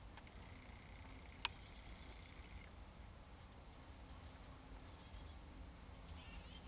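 Quiet outdoor ambience with a faint, steady, very high insect trill, one sharp click about one and a half seconds in, and two short runs of very high, quick downward chirps, one near the middle and one near the end.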